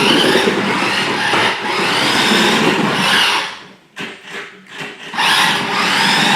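Remote-control toy car's electric motor whining and its tyres scrubbing as it drives, speeding up and slowing in rising and falling whines. It stops for about a second and a half around four seconds in, then runs again.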